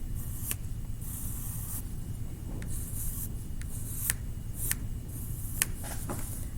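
Pencil scratching on paper in a run of short strokes, with a few sharp ticks in between.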